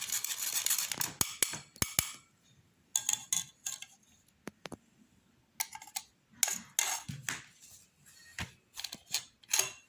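Metal spoon clinking and scraping against a pot and bowl while spoonfuls of the boiled herb and oil mixture are measured out: a scraping stretch, then scattered separate clinks.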